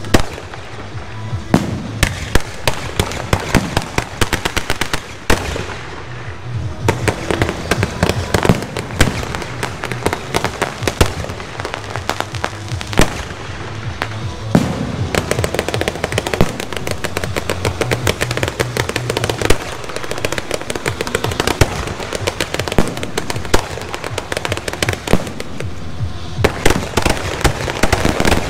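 Aerial fireworks show: a dense, continuous run of bangs, pops and crackling from shells bursting overhead and fountains firing from the ground, with the loudest bangs near the end.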